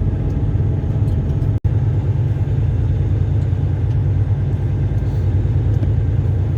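Semi truck's diesel engine and road noise heard from inside the cab, a steady low rumble. The sound drops out for an instant about a second and a half in.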